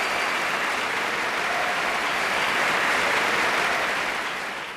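Audience applauding steadily, fading a little near the end.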